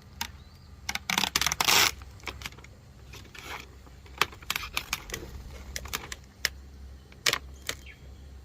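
Vinyl decal transfer paper being handled and peeled: irregular crinkles and small sharp clicks, densest about a second in, over a steady low hum.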